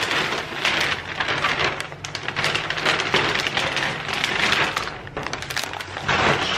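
Plastic shopping bag crinkling and rustling in dense, irregular crackles as a cardboard box is pulled out of it.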